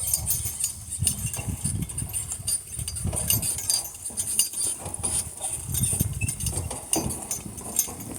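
Metal harness fittings clinking and rattling irregularly as a harnessed team of donkeys walks, over an uneven low rumble.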